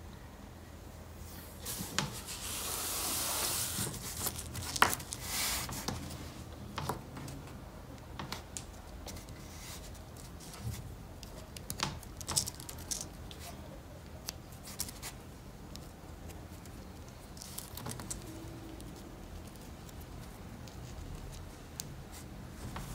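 Wooden atom-puzzle pieces being handled: scattered light clicks and knocks of wooden balls and pegs being fitted together, with a rubbing, rustling stretch about two to four seconds in.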